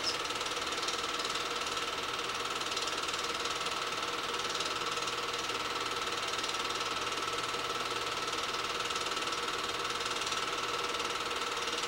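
8mm film projector running steadily: an even mechanical whir with a faint steady whine.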